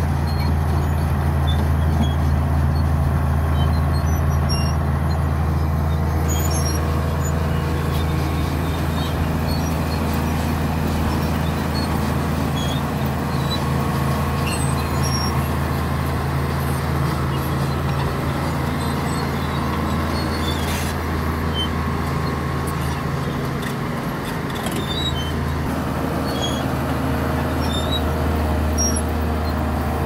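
LiuGong B160C crawler bulldozer's diesel engine running steadily under load while pushing rock fill, a deep even hum with scattered light clicks.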